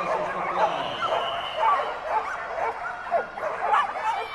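Several dogs barking and yipping in quick, short, repeated calls that overlap throughout, over the background hubbub of a large hall.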